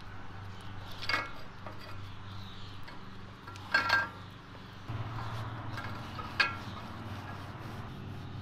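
A metal scraper and rag work over the greasy steel support shaft and welded collar. Faint scraping and wiping is broken by three sharp metallic clinks: about a second in, near four seconds, and past six seconds.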